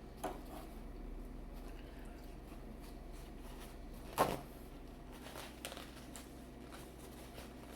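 Small handling clicks and knocks over a low steady hum, with one louder short knock about four seconds in.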